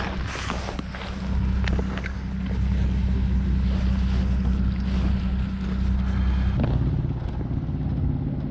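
A steady low motor hum that drops to a lower pitch about six and a half seconds in, with some wind noise on the microphone.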